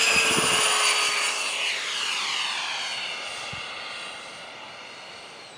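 Electric ducted fan of a Falcon 120 RC jet whining as the jet takes off and climbs away. The whine drops in pitch as the jet passes and then fades steadily.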